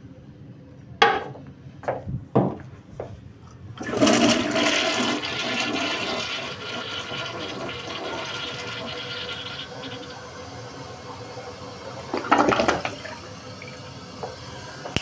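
A few hard plastic clacks as the toilet lid is raised, then a Delta toilet flushing: a sudden loud rush of water about four seconds in that swirls down and eases into a steady hiss as the bowl refills, with a brief loud burst about twelve seconds in.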